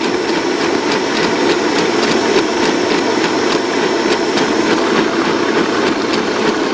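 Electric stand mixer running steadily, its whisk beating cream and white cheese in a steel bowl to whip them stiff.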